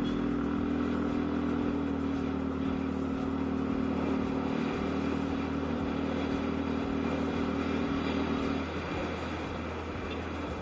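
Yamaha Aerox scooter engine running at a steady pitch while riding. Near the end the engine note falls away as the throttle is eased off.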